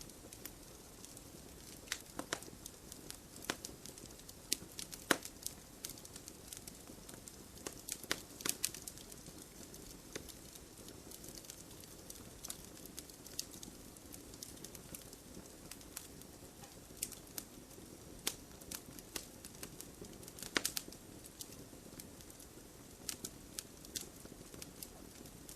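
Campfire crackling: burning wood gives off irregular sharp pops and snaps over a steady low hiss. The loudest pops come about five seconds in, around eight seconds, and again about twenty seconds in.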